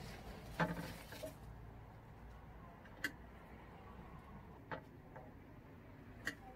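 A few short, sharp knocks and clicks, the loudest about half a second in, from cut sunflower stems being handled on a table and set into a glass vase, over a faint steady background.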